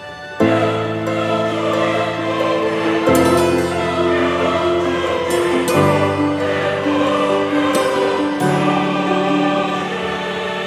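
Background music: slow, held chords that change about every three seconds.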